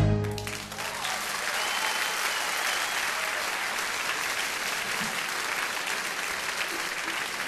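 Audience applauding steadily at the end of a stage musical number, just after the final chord dies away. The applause cuts off abruptly.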